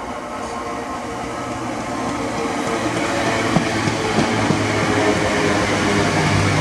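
Class 322 electric multiple unit arriving and running past close by, growing louder as it nears, with a steady electric hum over the rumble of the wheels and a few sharp clicks about halfway through.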